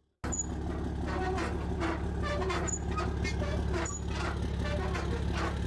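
Pressure washer running: a steady low machine hum with the rushing noise of the spray, starting abruptly just after the start.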